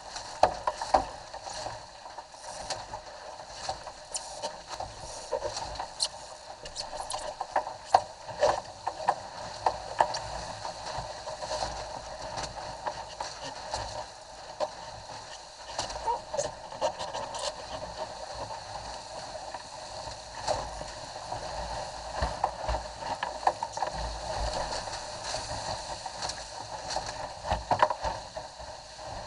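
Water rushing and splashing along the hull of a Cherub sailing skiff moving fast through chop, with frequent sharp slaps and knocks from waves and spray hitting the boat.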